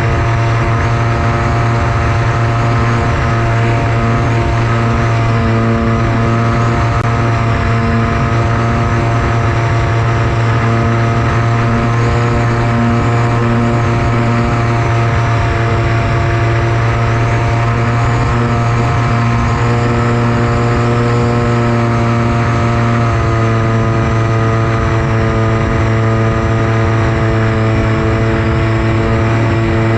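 Electric motor and propeller of a Versa Wing FPV flying wing running at a steady cruise throttle, a constant drone with a high whine that wavers slightly; the tones shift a little about two-thirds of the way in as the throttle changes.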